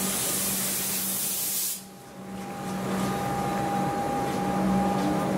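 A loud hiss of released air from an Alstom Comeng electric train cuts off abruptly a little under two seconds in. The train then starts pulling away from the platform, its motors giving a steady tone over rolling noise.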